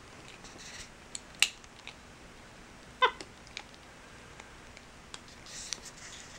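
Capuchin monkey gnawing on a die-cast toy car: a few sharp clicks of teeth on the car, the loudest about a second and a half in, and one short squeak about three seconds in.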